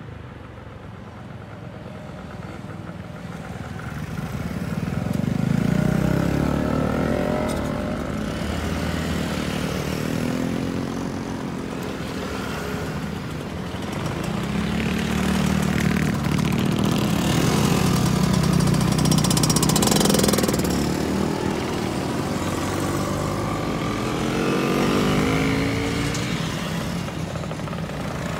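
A stream of motor scooters riding past one after another, their engines swelling and fading with each pass and gliding in pitch as they go by.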